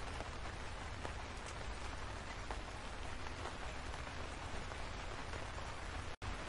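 Steady rain falling on leafy trees, an even hiss with faint individual drops. It cuts out for an instant near the end before carrying on.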